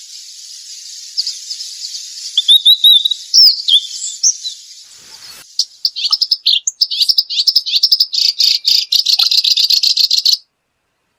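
Small wild songbird singing: a few scattered whistled notes and slurred glides over a steady high hiss, then from about halfway a fast, unbroken run of chattering notes that cuts off suddenly near the end.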